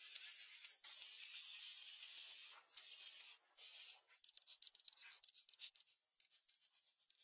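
Handsaw cutting through a wooden beam, a steady rasping for the first two and a half seconds. About four seconds in comes a quick run of short scraping strokes on the wood.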